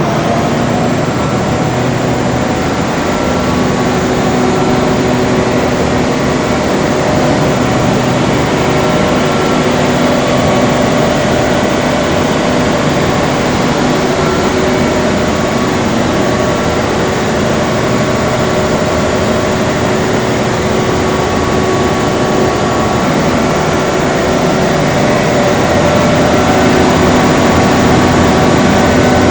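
630 kVA diesel generator running steadily, loud and even, with a few faint steady tones in it.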